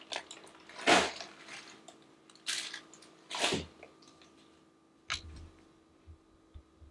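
Plastic mailer bag rustling in a few short crinkly bursts as it is moved, the loudest about a second in, then a light tap about five seconds in and a couple of soft thumps.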